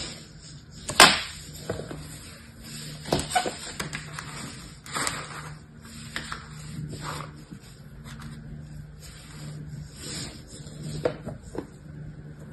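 Scattered soft taps and short crumbly rustles of kinetic sand being handled on a tabletop, with one sharp knock about a second in.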